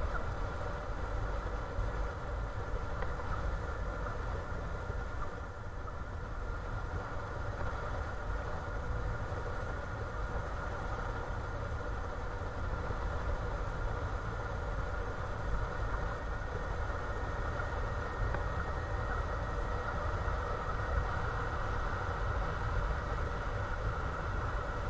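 Motorcycle engine running steadily as the bike rides along at an even pace, picked up by a handlebar-mounted camera along with a low, constant rumble of wind and road noise.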